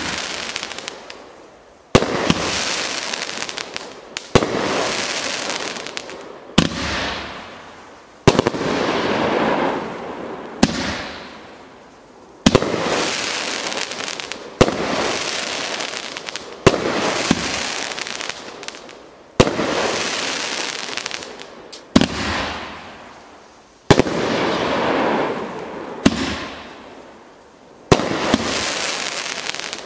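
A 500-gram, 21-shot consumer firework cake (The Snow Queen) firing a shot every two seconds or so, about a dozen in all. Each is a sharp bang followed by a hissing tail that fades away.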